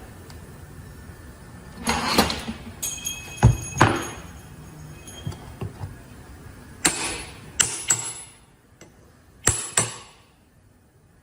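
Hammer blows driving a steel cap into a truck air disc brake caliper: a series of sharp metal knocks, several in quick pairs, each with a short metallic ring.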